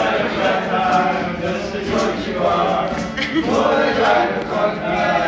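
A group of young male voices singing or chanting together, with some talk mixed in.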